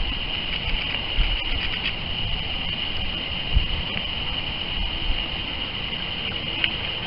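Outdoor ambience at the water's edge: a steady high-pitched buzz over a constant rushing hiss, with wind knocking on the microphone a few times, hardest about three and a half seconds in.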